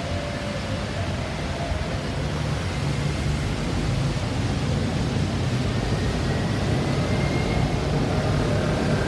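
Road traffic noise: a steady rumble of vehicle engines and tyres that grows slightly louder.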